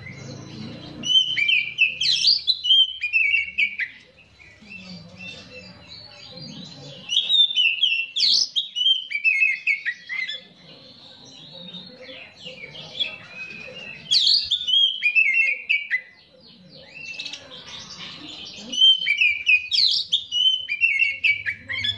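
Caged Oriental magpie-robin singing in four loud, fast, varied phrases of two to three seconds each, with short pauses between them.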